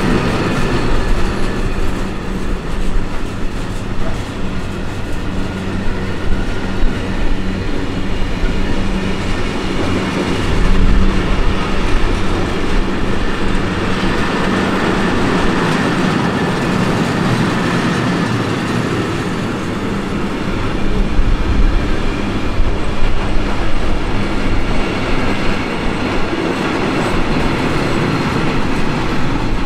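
Freight train of gas tank wagons rolling past, a loud, steady noise of steel wheels running on the rails.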